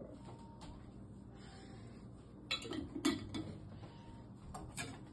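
A few light clinks and knocks of kitchen utensils and containers being handled, in small clusters about halfway through and again near the end.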